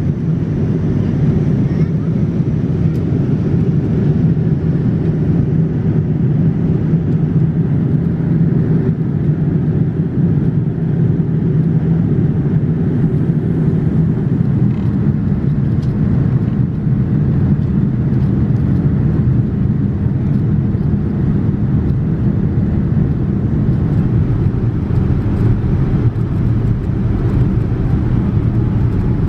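Steady, low-pitched cabin noise of a Boeing 787-9 airliner in descent: airflow and engine noise heard from inside the cabin.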